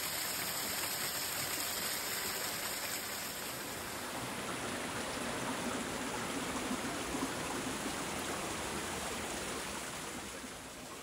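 Hot spring water falling down a rock face and running through rocky pools: a steady rush of water.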